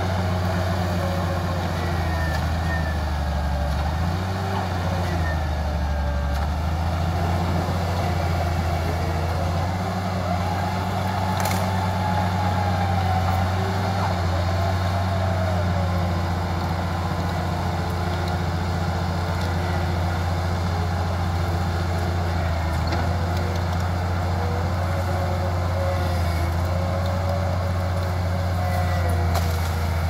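Crawler bulldozer's diesel engine running steadily under load while the dozer pushes into trees, with a wavering whine over the low engine drone. One sharp crack about eleven seconds in.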